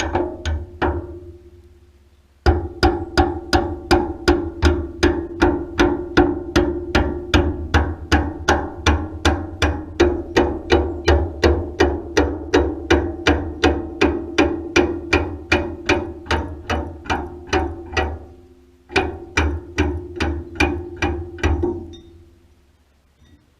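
Rhythmic metal-on-metal strikes, about three a second, each ringing with a steady metallic tone. They pause briefly at the start and again near the end, then stop.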